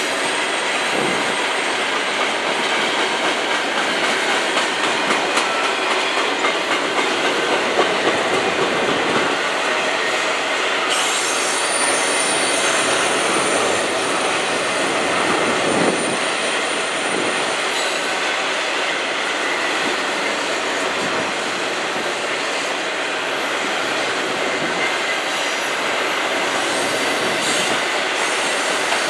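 CN 107 double-stack intermodal train's container well cars rolling past at speed: a steady rumble and rattle of wheels on rail, with a thin high wheel squeal at times.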